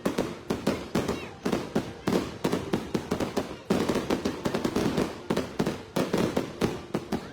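Aerial fireworks bursting in a rapid, unbroken string of bangs, two or three a second, each with a short echoing tail.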